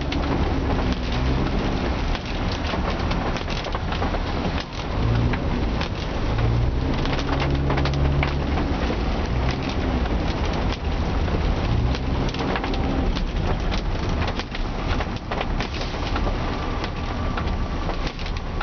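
Inside a moving taxi in heavy rain: rain on the car and tyres hissing on the wet road make a steady, loud noise. The engine runs underneath, its pitch rising and falling with the driving.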